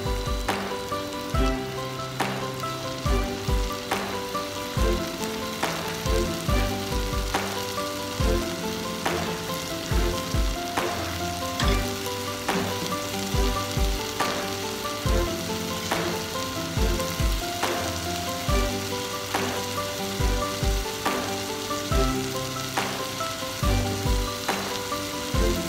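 Background music with a steady beat, over the sizzle of diced vegetables frying in a pot.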